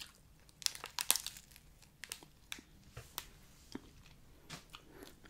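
Paper-and-foil ice cream wrapper crinkling as it is handled and peeled back: a scatter of short, light crackles, busiest in the first three seconds and thinning out after.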